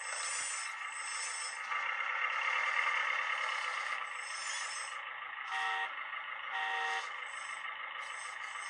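Scale RC construction machinery running: a steady whirring drone that swells for a couple of seconds, with two short beeps about a second apart past the middle.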